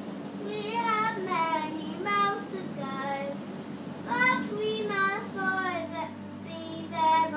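A young child singing a Christmas song in held, gliding notes, over a low steady hum.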